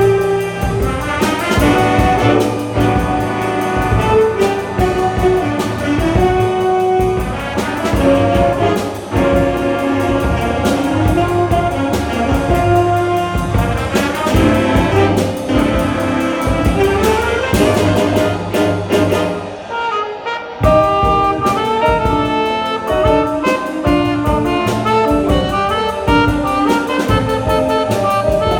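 A jazz band with saxophones and brass playing over drums. There is a short break about twenty seconds in before the full band comes back in.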